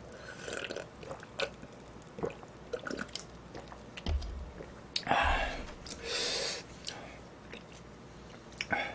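A man drinking from a glass with soft swallows, then a dull knock as the glass is set down about four seconds in. Short breathy rushes follow, then small clicks of chopsticks lifting ramen noodles into a bowl near the end.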